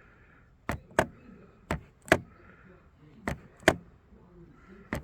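Sharp clicks in pairs, four pairs about a second and a half apart, from the ATV's instrument-panel button being pressed to step the display between readouts such as hours and odometer.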